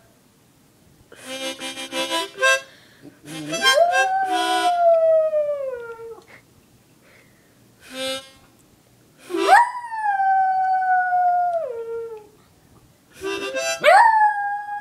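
Harmonica played in short chord bursts, with a small dog howling along: three long howls, each rising quickly in pitch and then sliding slowly down.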